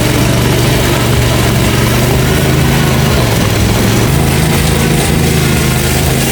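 A 72-inch commercial zero-turn mower's engine running steadily under load.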